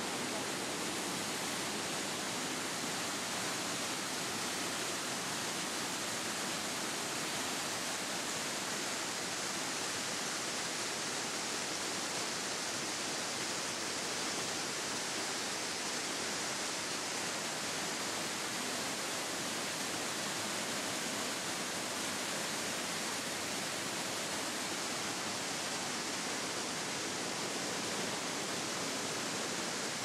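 A waterfall rushing steadily: an even, unbroken hiss of falling water.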